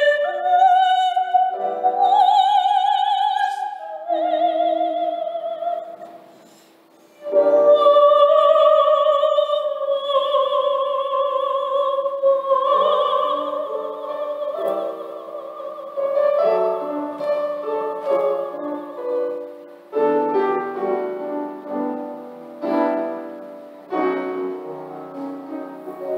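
A woman sings a Korean sacred solo in a classical, operatic style with wide vibrato over piano accompaniment. After a brief breath she holds one long note. Piano chords carry the closing bars as the song ends.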